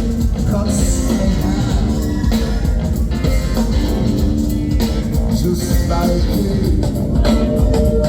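A rock band playing live, loud, with a heavy low end.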